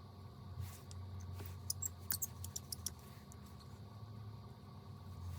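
Light clicks and taps of small repair tools on a phone's parts, a quick cluster of them between about one and a half and three seconds in, over a low steady hum.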